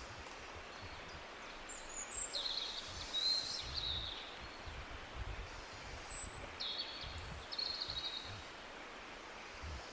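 Tropical birds giving high, trilling calls in two bouts, about two seconds in and again around six seconds in, over the steady hiss of a jungle waterfall.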